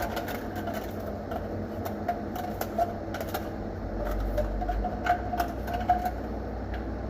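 Scattered light clicks and taps at an irregular pace over a low steady hum.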